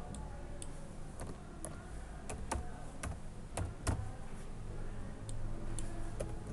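Computer keyboard being typed on: about a dozen separate key clicks at an uneven pace, over a low steady hum.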